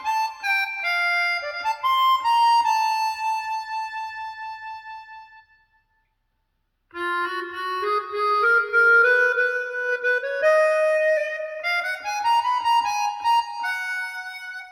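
Recorded music played through a Technics SC-C70 MK2 compact stereo system: a melody of held, bending notes. The music dies away to silence about five and a half seconds in, and a new phrase starts a second or so later with a slow upward glide.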